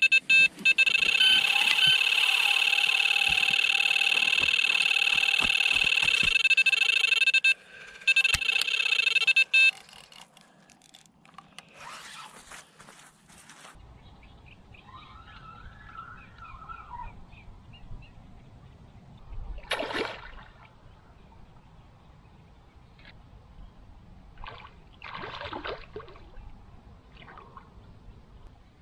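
Electronic carp bite alarm sounding one continuous high tone for nearly ten seconds, with a short break near the end: a run, with a fish taking line from the rod. After it stops come faint rustles and small knocks, with one brief sharp sound about twenty seconds in.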